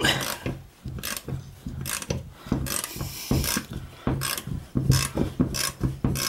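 A ratchet wrench clicking in short irregular runs as it cranks the forcing screw of a C-frame ball joint press, pressing the worn lower ball joint out of the steering knuckle. A low steady hum runs underneath.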